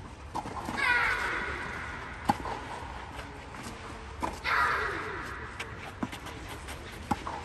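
Tennis balls struck back and forth with rackets in a rally, each hit a sharp pop echoing in the large dome hall, the loudest two near the camera. A voice twice makes a drawn-out sound falling in pitch, each time just after a hit.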